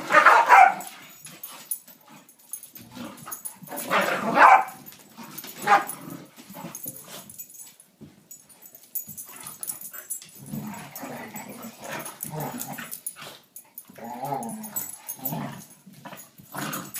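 Dogs play-fighting, growling and barking, with loud outbursts at the start and about four seconds in, then quieter growling from about ten seconds in.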